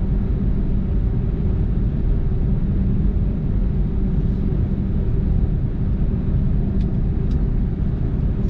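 Steady engine drone and road rumble inside a truck's cab while cruising at highway speed.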